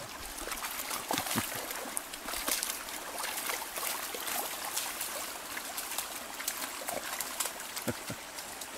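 Shallow spring creek trickling and running over stones, with small splashes from a puppy's paws as it wades through the water.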